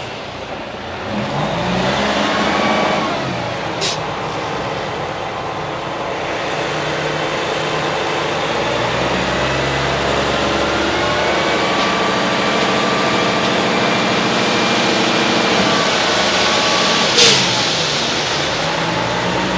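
A heavy diesel engine on construction machinery running and being revved, its pitch rising and falling. Two sharp metallic clanks cut through it, the louder one near the end.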